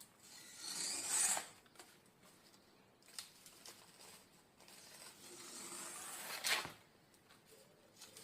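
Fibrous skin and veins being ripped off a spiny plant stalk: two long tearing strips. The first comes about a second in. The second builds from about four and a half seconds and ends in a sharp snap near six and a half seconds.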